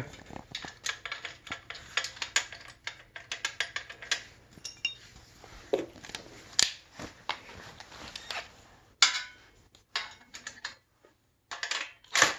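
Scattered light metallic clinks and clicks of a steel bolt and hand tools as the motorcycle's motor mount bolt is fitted back in, with a few short scraping sounds toward the end.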